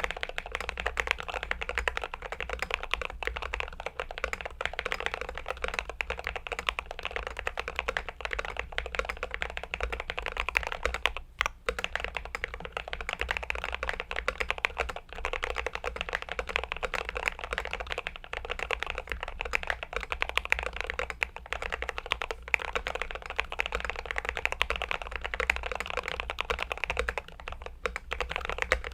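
Glorious GMMK Pro mechanical keyboard being typed on steadily, a fast, dense run of keystrokes with a brief pause about eleven seconds in.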